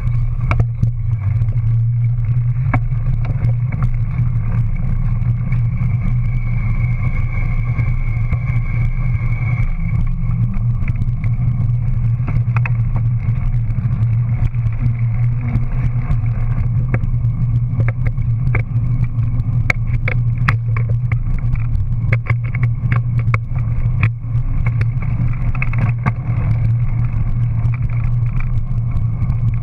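Steady low drone of riding along pavement on a dual-suspension bike, with many scattered sharp clicks and rattles, most of them after the middle.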